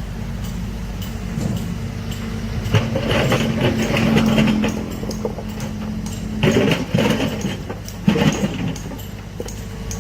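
A heavy excavator's engine runs steadily. Bursts of rattling knocks come over it about three, six and a half and eight seconds in.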